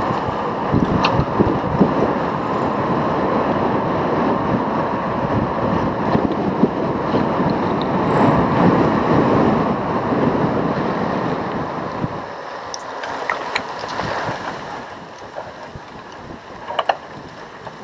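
Wind rushing over the microphone of a camera riding on a cyclocross bike, mixed with the rolling noise of the bike at speed on a paved path. About twelve seconds in it becomes quieter and thinner, with a few sharp clicks and rattles.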